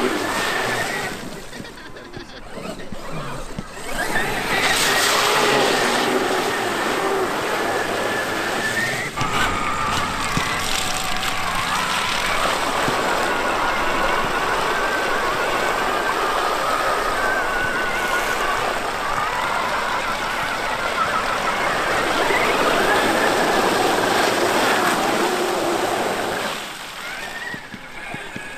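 Traxxas X-Maxx RC monster truck's VXL-8s brushless electric motor whining, its pitch rising and falling with the throttle, over a steady hissing noise from the running truck. It is quieter for a few seconds near the start and drops away shortly before the end.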